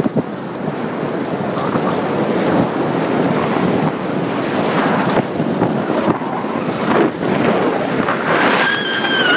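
Wind rushing over the microphone and a snowboard scraping and chattering over choppy, tracked-up snow while riding downhill, with a few bumps. A short high-pitched squeal comes near the end.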